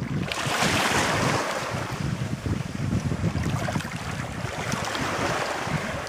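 Seawater washing and sloshing around a landing net in the shallows, with a stronger wash about half a second in, over a low rumble of wind buffeting the microphone.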